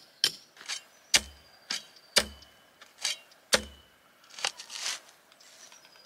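A hammer knocking nails into a timber frame a couple of times, then a clamshell post-hole digger jabbed into the ground: three heavy thuds, each with a short metallic ring from the steel blades, and a brief scrape of soil.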